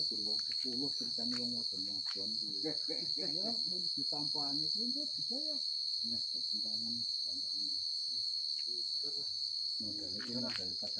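Steady, high-pitched chorus of crickets at night, the loudest sound throughout. Beneath it, people's voices are talking; the talk falls away about two-thirds of the way through and picks up again near the end.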